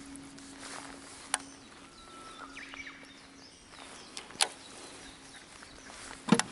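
Quiet outdoor ambience with a faint steady hum under it, broken by two sharp clicks, about a second and a half in and about four and a half seconds in, and a louder knock near the end.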